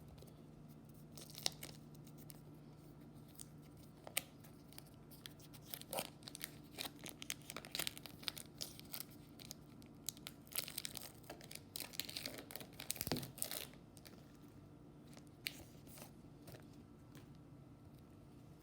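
Foil wrapper of a baseball card pack being torn open and crinkled by hand: a faint, irregular run of crackles and rips, busiest in the middle.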